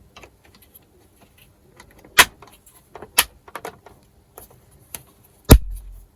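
Clicks and knocks of a car radio display module's plastic parts being handled and fitted back together: two sharp clicks about two and three seconds in, lighter taps between them, and a heavy thump about five and a half seconds in.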